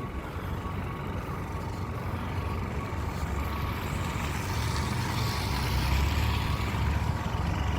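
Street traffic: a motor vehicle's low engine rumble and road noise swell as it passes, loudest a little past the middle, over a steady city background.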